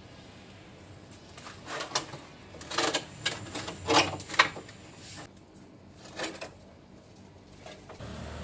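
Corrugated roofing sheets knocking and scraping against each other as they are lifted off a stack, in a cluster of short, sharp clatters, with one more knock a couple of seconds later.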